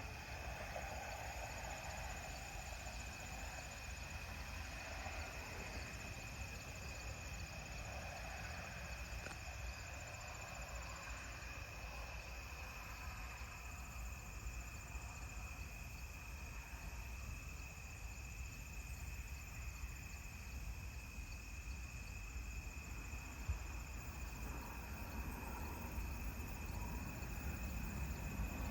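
Crickets chirping in a steady, continuous chorus, with a low rumble underneath.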